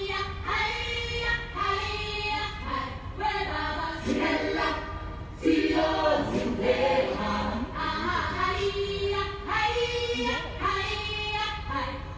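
A choir singing a song in short phrases that break and restart about every second.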